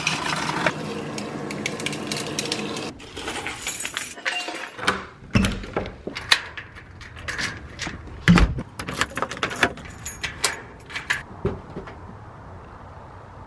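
Water from a refrigerator door dispenser pouring steadily into a tumbler for about three seconds, then stopping abruptly. After that comes a scatter of clicks and knocks, with keys jangling, from a lever door handle being worked.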